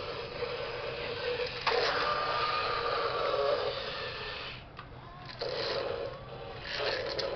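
Motorised walking toy T-Rex's gear motor whirring as it steps along, dropping away briefly about five seconds in and then starting up again.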